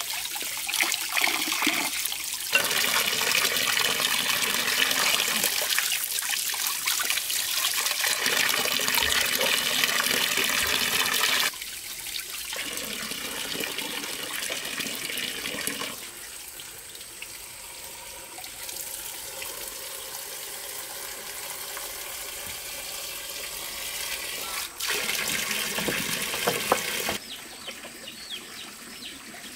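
Tap water pouring into a steel basin of water as crabs are rinsed under it: a steady splashing rush. It drops in level suddenly a few times and is quieter for the last couple of seconds.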